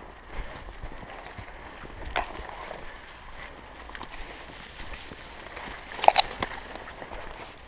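Footsteps crunching over stony ground and dry leaves, with branches and brush rustling past, and a brief sharp double sound about six seconds in.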